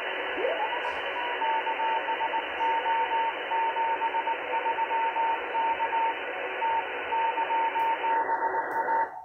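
Shortwave receiver audio from a RadioBerry software-defined radio: band hiss with a Morse code (CW) signal heard as a single-pitch beep keyed in dots and dashes. About a second in, the beep glides up into pitch as the signal is tuned in. Near the end the hiss turns duller as a narrower receive filter is selected.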